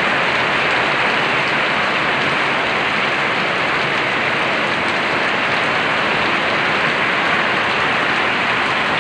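Heavy downpour: a steady, dense hiss of rain pouring onto a concrete yard.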